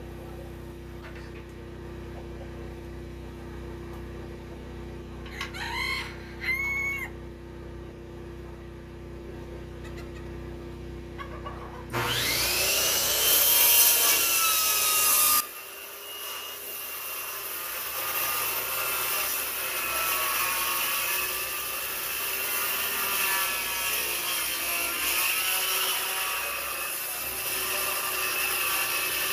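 A few short chicken clucks about six seconds in. At about twelve seconds a DeWalt corded circular saw starts with a rising whine and cuts into the coop's plywood wall, running on through the wood with a wavering whine.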